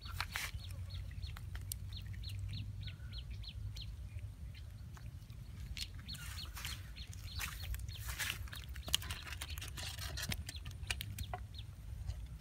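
A bird calling in a quick series of short high notes, about three a second, over a steady low rumble, with scattered sharp clicks.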